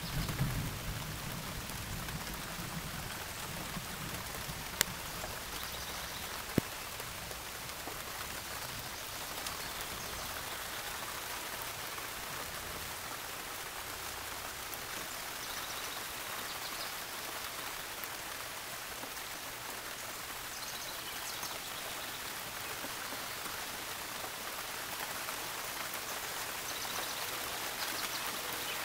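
Steady rain, an even hiss, with two sharp ticks about five seconds in and again a second and a half later.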